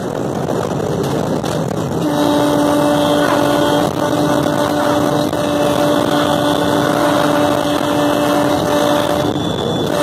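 WAP-5 electric locomotive's horn sounding one long steady blast, starting about two seconds in and lasting about seven seconds with a brief break near its start, then a short toot at the very end. Underneath is the steady rumble and wind noise of the cab running at around 150–160 km/h.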